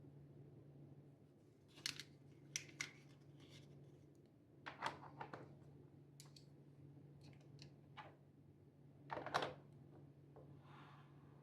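A scattering of short, sharp clicks, snips and rustles from hand handling while packing a lunch box. The loudest comes about nine seconds in, over a faint steady low hum.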